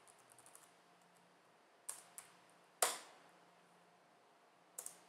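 Faint computer keyboard keystrokes and clicks: a few light taps in the first second, two sharper clicks around two seconds in, the loudest click near three seconds, and one more near the end.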